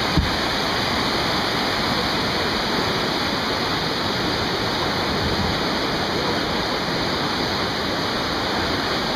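Whitewater rapids rushing steadily, a dense unbroken wash of water noise. A single brief thump just after the start.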